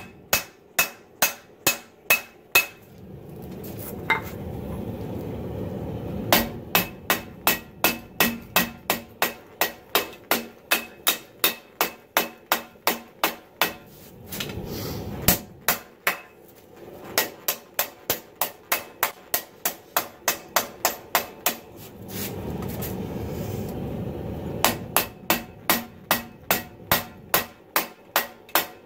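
Hand hammer striking red-hot 80CrV2 steel on a cast steel anvil while drawing out a knife blade's tip. The blows come in runs of about two to three a second, each with a short metallic ring. Between the runs a steady rushing noise is heard.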